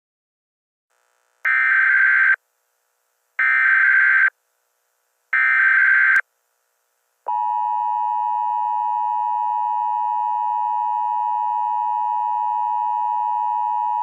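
Emergency Alert System tones. First come three roughly one-second bursts of SAME header data tones, evenly spaced. Then, about seven seconds in, the steady two-tone EAS attention signal begins; it marks the start of an emergency alert broadcast.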